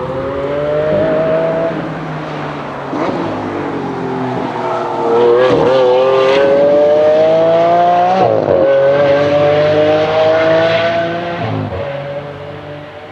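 Lamborghini Aventador's V12 engine accelerating hard on track, its pitch climbing through each gear and dropping sharply at each upshift. There are three quick shifts, the loudest pull in the middle, and the sound dies away near the end.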